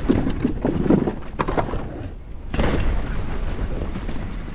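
Mountain bike riding down a dirt trail: a steady rumble of tyres and wind on the microphone, with repeated sharp knocks and rattles from the bike over bumps, loudest about two and a half seconds in.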